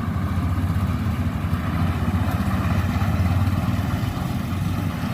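Yanmar AW82V combine harvester's diesel engine and machinery running steadily under load.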